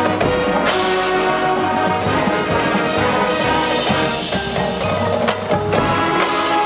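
High school marching band playing its halftime show: sustained wind chords that change every second or two, with mallet percussion ringing over them.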